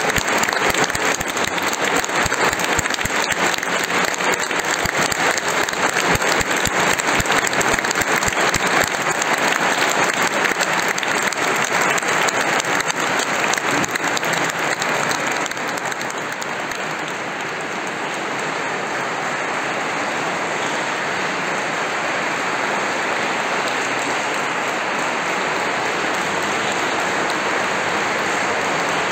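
Audience applauding: dense clapping, slightly quieter and more even after about the halfway point.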